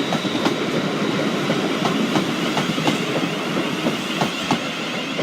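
Train moving through the station, its wheels clicking irregularly over rail joints and pointwork above a steady rumble.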